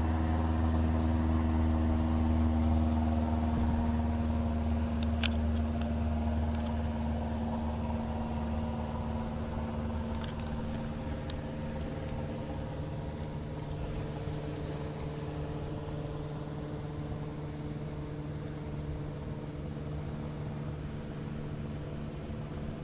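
Steady low engine hum, slowly fading, with a few faint clicks.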